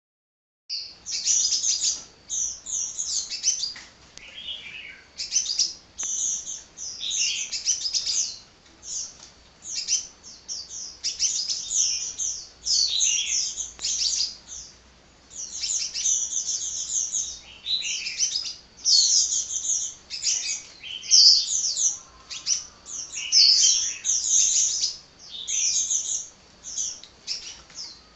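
Sunbird singing a rapid, high-pitched chattering song of quick chirps, in phrases of one to two seconds with only brief pauses.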